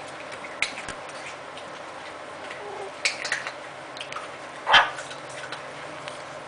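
Maltese puppies play-fighting, with small scuffling clicks and brief puppy noises. The loudest is one short, sharp sound about three-quarters of the way through.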